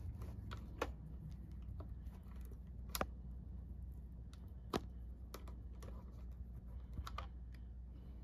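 Scattered light clicks and taps of a screwdriver against the plastic truck and small parts of a G scale model caboose as its spring-loaded track power pickups are taken out, with two sharper clicks around the middle. A faint low hum runs underneath.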